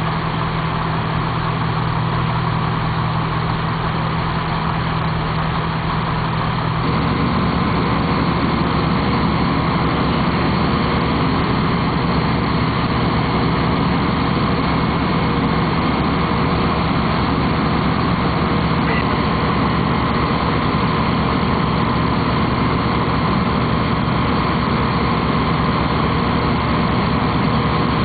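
Heavy truck diesel engine running steadily nearby; about seven seconds in, its low hum steps up to a louder, rougher running.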